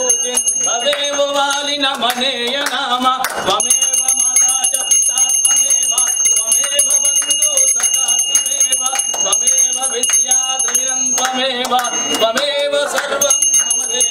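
Small brass puja hand bell rung continuously during an aarti, with a man chanting in a sing-song voice beneath it; the ringing stops briefly twice.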